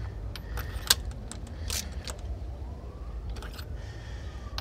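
Metal hand tools clinking and tapping in an engine bay as spark plugs are fitted, with one sharper clink about a second in and a few lighter ones after.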